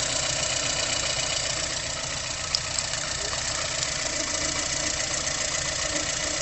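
VAZ 2115 engine idling steadily with the timing belt running, a short click about two and a half seconds in.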